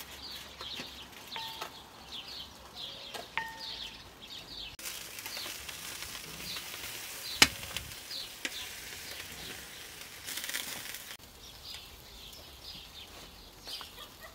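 Fish sizzling in hinged wire grill baskets over charcoal through the middle of the clip, with a sharp pop about seven seconds in and a smaller one a second later. Around it, a basting brush dabs oil marinade onto raw fish in a wire basket, with a couple of light metallic clinks. Birds chirp repeatedly throughout.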